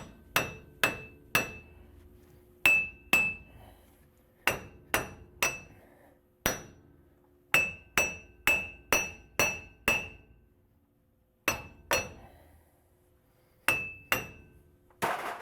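Hammer blows on a Nissan Titan's front wheel hub assembly, about twenty sharp metallic strikes in irregular bunches, each ringing briefly. The hub is stuck in the steering knuckle and does not come out from hammering.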